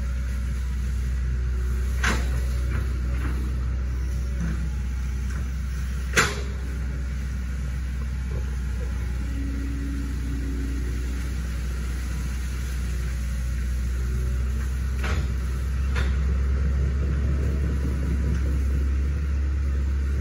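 Hitachi ZX110 excavator's diesel engine running steadily with a low rumble, with a few sharp knocks over it, the loudest about six seconds in.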